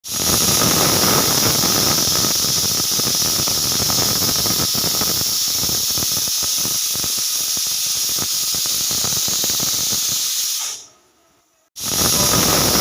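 Pressure cooker whistle blowing off steam: a loud, steady, high hiss as built-up pressure lifts the weighted valve. The hiss dies away near the end, and after a short gap a fresh burst starts suddenly.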